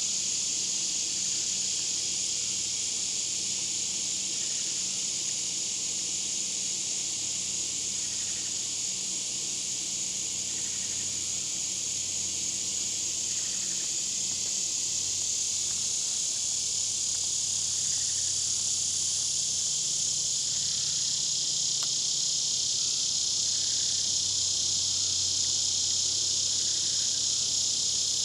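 Dense chorus of singing insects: a steady, high-pitched buzz that holds without a break.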